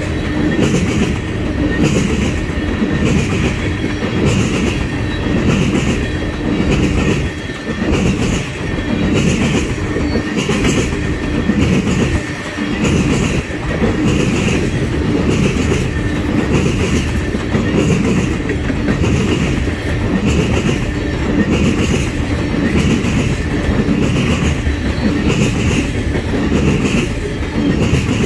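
Railroad tank cars of a freight train rolling past close by: a steady clickety-clack of steel wheels over the rail joints, about two beats a second, over a continuous rumble.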